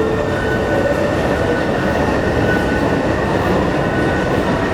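Steady rumbling noise of a metro train running, with a faint high whine held over it.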